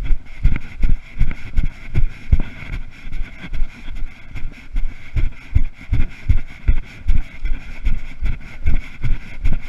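Footsteps of a person moving quickly through long grass, thudding on a body-worn camera about two and a half times a second over a steady hiss.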